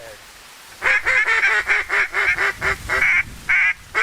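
A rapid, loud run of duck quacks, about four a second, starting about a second in, with a brief pause near the end.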